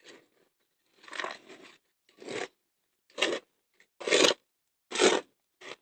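A small metal scoop scraping and crunching through a dry mix of cement, sand and gravel aggregate, in separate short strokes about once a second, the loudest near the end.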